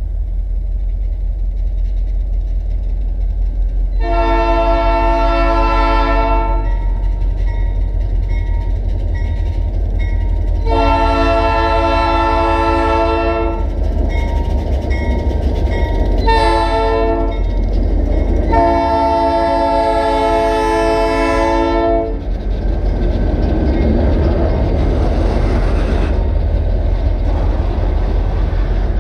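Diesel freight locomotive's chord horn sounding the grade-crossing signal, two long blasts, a short one and a final long one, over the steady low rumble of the engine as the train approaches. After the last blast the locomotive and loaded freight cars roll past with a broad, steady rolling noise.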